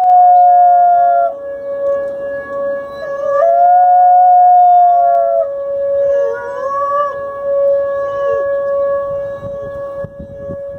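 Dog howling in long drawn-out notes, with the howl wavering and gliding near the middle, over a steady unbroken held tone.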